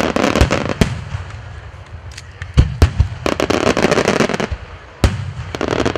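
A barrage of aerial firework shells bursting: deep booms overlapping with dense spells of sharp crackling, coming in three waves, the loudest boom a little before the middle.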